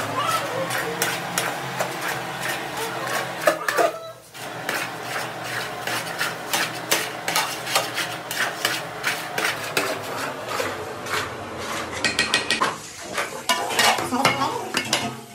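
Metal ladles scraping and clinking against a large aluminium pot as semiya (vermicelli) is stirred and tossed, in quick repeated strokes with a brief pause about four seconds in.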